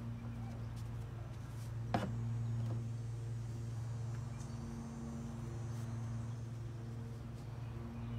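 A steady low mechanical hum, with a single sharp click about two seconds in.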